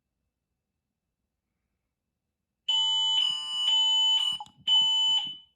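Ring Alarm system's fire siren sounding in loud, shrill beeps, set off as a fire panic alarm test. It starts almost three seconds in after silence.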